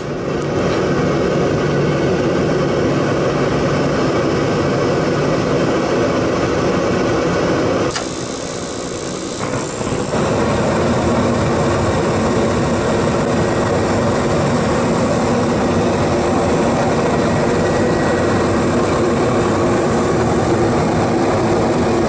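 Gas burners of a Lennox GCS16 rooftop unit lit and burning with a steady rushing roar, the flame holding, a good sound. About eight seconds in the sound turns thinner and hissier for about two seconds, then the steady roar returns.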